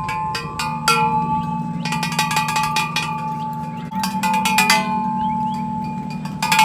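Bell-like chime music: quick runs of struck, ringing notes in several bursts, over a steady low hum.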